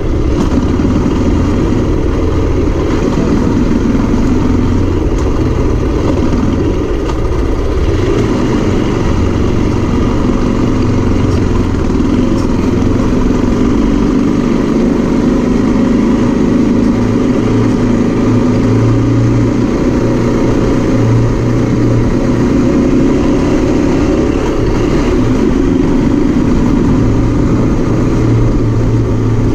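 Zongshen RX3 motorcycle's single-cylinder engine running at low revs as the bike rides slowly, its note rising and falling with the throttle, over a steady hiss of wind and road noise.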